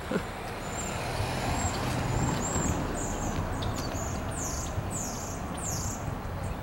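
Approaching Union Pacific freight train's diesel locomotives running, a steady low drone. A bird chirps about five times in the second half, short falling notes.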